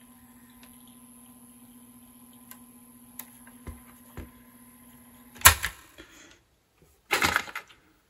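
Panasonic cassette tape recorder running without a tape, giving a faint steady motor hum. About five and a half seconds in there is a loud mechanical clunk and the hum stops, followed a second and a half later by a short clatter of handling.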